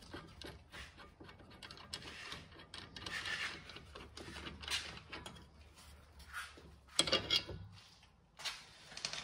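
Hand-and-tool handling noise from working an old sway bar end link loose: scattered metal clicks, scrapes and rubbing, with a brief louder clatter of knocks about seven seconds in.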